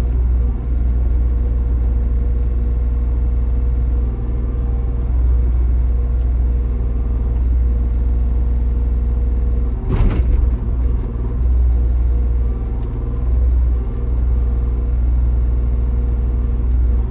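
Backhoe loader's diesel engine running steadily with a heavy low rumble. One sharp clunk comes about ten seconds in.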